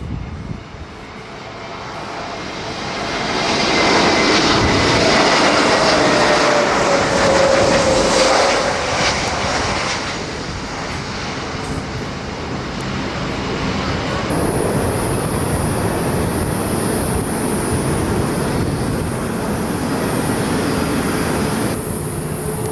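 Airliner jet engines passing close on a landing approach: the noise swells to its loudest with a whine sliding down in pitch as the Airbus A321 goes by. About two-thirds of the way through it gives way to the steady running noise of a taxiing Airbus A330's jet engines with a high hiss.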